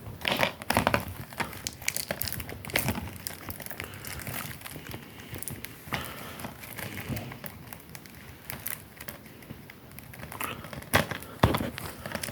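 Plastic wrapping crinkling and crackling in irregular bursts as a DVD set is unwrapped and handled, with a few sharper, louder crackles near the start and near the end.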